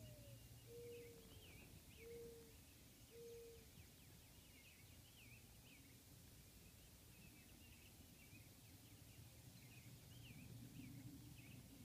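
Faint dawn birdsong: small birds chirping and twittering throughout, with a run of four low, even hooting notes in the first few seconds, over a steady low background rumble.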